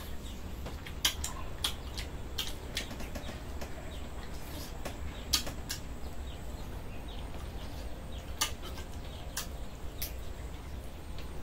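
Scattered light clicks and clinks of tableware while eating, a dozen or so at irregular intervals, over a steady low rumble.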